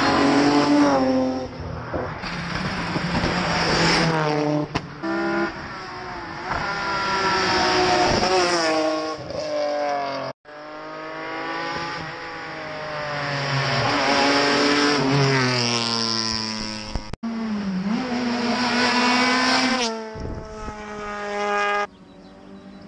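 Rally cars driven hard past the roadside, engines revving up and dropping back again and again through gear changes. The sound breaks off abruptly about ten and seventeen seconds in, where separate passes are cut together, and it falls quieter near the end.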